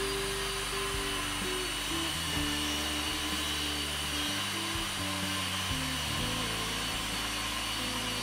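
Skil corded circular saw running steadily as it cuts through a wooden board, under background guitar music.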